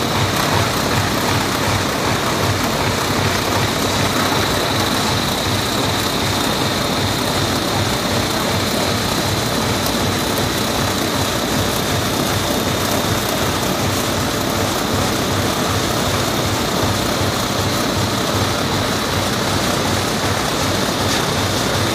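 Rotary die cutter line for corrugated boxes running at production speed: a loud, even mechanical noise with a thin steady high whine over it.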